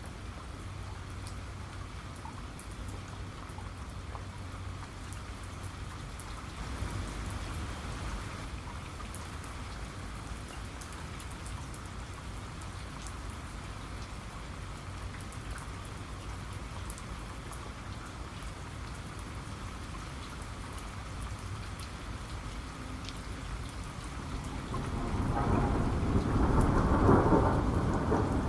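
Steady rain with scattered sharp drop ticks. A low rumble of thunder swells up near the end and is the loudest sound, with a smaller rumble about seven seconds in.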